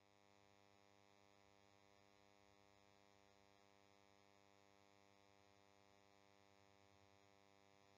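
Near silence: a very faint, steady hum.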